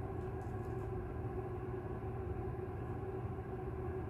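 Steady low mechanical hum with a constant rumble and a faint steady tone through it, with a brief soft rustle about half a second in.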